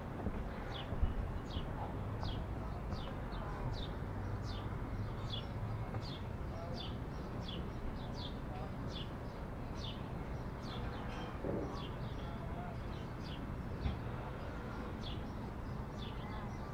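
A bird chirping over and over, short high down-slurred chirps about twice a second, over a low steady hum of street background.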